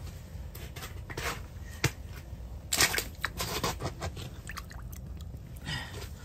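Hands working fishing line and jig at a slushy ice-fishing hole: scattered clicks, then a burst of crunchy, wet rustling a few seconds in as the jig goes into the water.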